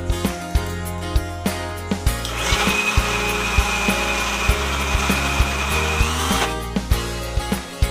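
Electric mixer grinder running for about four seconds, starting a couple of seconds in and stopping near the end, with a steady high whine over a dense whirr as it churns cream in its steel jar into white butter. Background music with a steady beat plays throughout.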